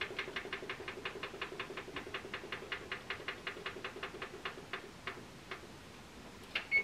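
Electric range's control panel clicking rapidly, about six times a second, as its kitchen timer is set. The clicks slow and stop, and a short beep follows near the end.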